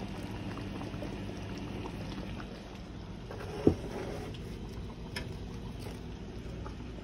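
Onion gravy simmering in a skillet, a steady low bubbling, with one short knock about three and a half seconds in.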